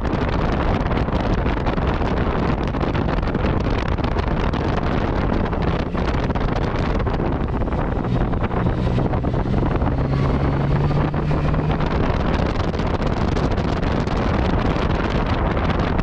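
Wind rushing over the microphone of a Yamaha MT-09 Tracer motorcycle on the move, with the bike's three-cylinder engine running underneath. The engine note rises briefly about halfway through, as the rider opens the throttle.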